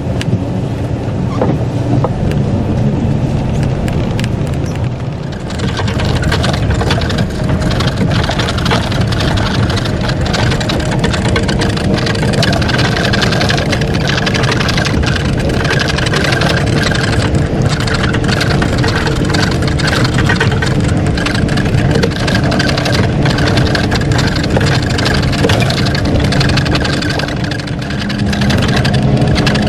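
Motor vehicle running steadily, an engine drone under rushing road noise that grows fuller about five seconds in; the engine note shifts near the end.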